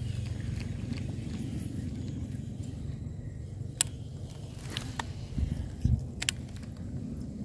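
Handling of a fishing rod and baitcasting reel: a few sharp clicks and a couple of soft thumps from the second half on, over a steady low rumble.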